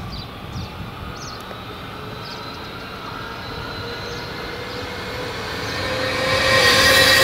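SBB Stadler FLIRT electric multiple unit approaching: its rolling noise and a steady whine grow louder throughout and swell sharply in the last second or so as the train draws near.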